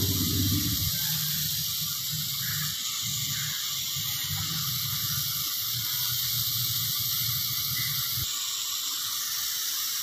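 Brazing torch flame hissing steadily, with a low fluttering rumble that stops about eight seconds in, as refrigerant pipework is brazed.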